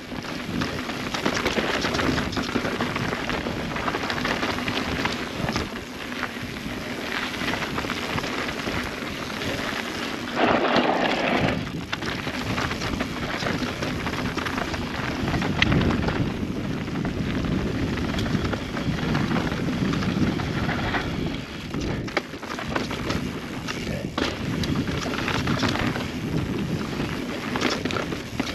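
Transition Spire mountain bike riding a dirt trail: a continuous rush of tyre and trail noise, full of small knocks and rattles from the bike going over the ground. A louder burst comes about ten seconds in.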